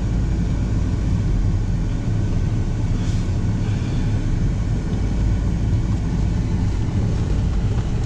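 Pickup truck's engine and tyres heard from inside the cab as it drives: a steady low rumble.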